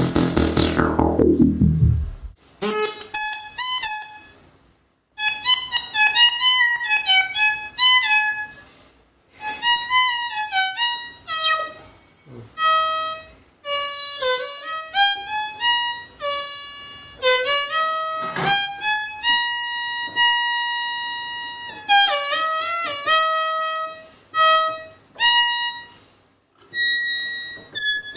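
РИТМ-2 synthesizer played freely, one note at a time, with a reedy lead tone. It plays short melodic phrases with sliding pitch bends, separated by brief pauses. It opens with a loud falling sweep that dies away in the first two seconds.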